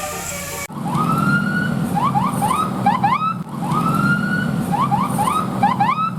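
A vehicle's electronic siren-style horn sounding a long rising whoop followed by a quick run of short rising chirps, the pattern played twice, over the steady sound of the running engine.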